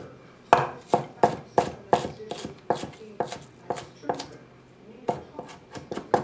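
A wide-bladed kitchen knife dicing shallot on an end-grain wooden cutting board: sharp knocks of the blade through the shallot onto the wood, about three a second, with a short pause about four seconds in before the chopping resumes.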